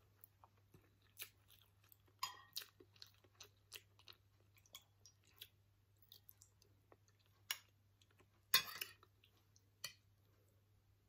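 A person eating close to the microphone: quiet chewing of fried rice with many small wet mouth clicks and smacks, a few of them louder, and sips of chicken noodle soup from a spoon.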